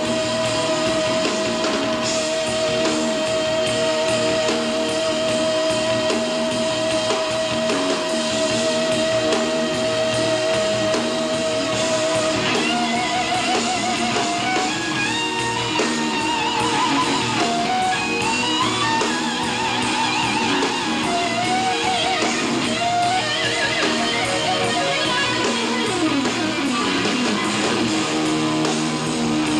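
Live rock concert recording of an electric guitar solo. One long held note with vibrato runs for about twelve seconds, then gives way to fast runs of notes sweeping up and down, with the band behind.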